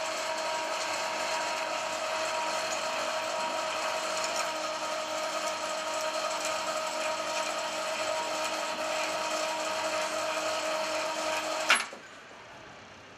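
Electric wire-rope hoist motor of a mini roof crane running steadily, a hum with a high whine, as it winds up its cable and hauls a loaded wheelbarrow up from below. It cuts off with a sharp click near the end.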